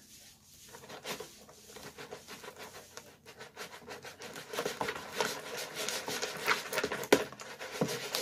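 Plastic spoon stirring and scraping a thick wet slime mixture against the sides of a plastic bowl: a quick run of scratchy clicks that gets louder about halfway through, with one sharp click near the end.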